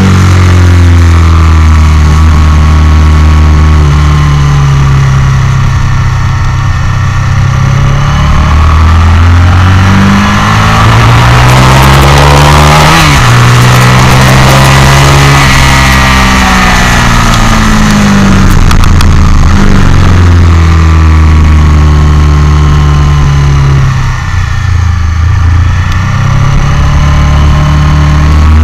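Motorcycle engine running hard under throttle, heard from on board the bike. Its pitch climbs, drops and climbs again as it changes gear, over a loud rush of wind, and the revs fall briefly about three-quarters of the way through.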